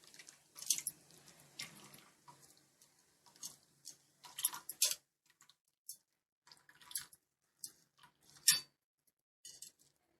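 Water dripping and splashing in irregular spurts as wet grated potato is pressed by hand in a strainer to squeeze the water out.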